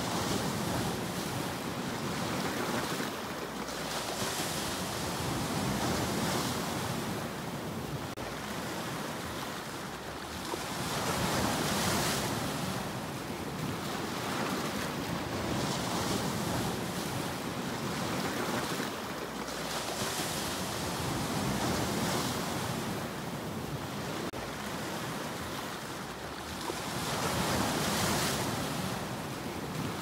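Sea surf washing ashore in a continuous hiss that swells with each wave every few seconds, with the biggest surges about twelve seconds in and near the end.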